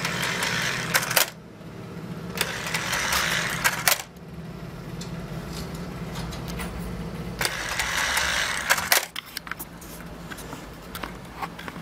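Lego 'useless machine' working: its small electric motor and plastic gears whirr in three bursts of about one and a half seconds each, with clicks and clatter of plastic parts, as the mechanism throws the toggle switch back after it is flipped.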